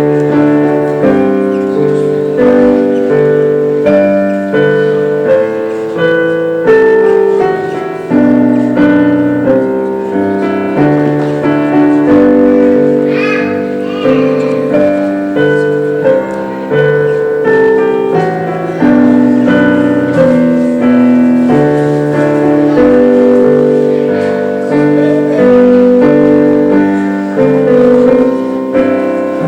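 Piano playing slow, hymn-like chords, each struck and left to fade before the next.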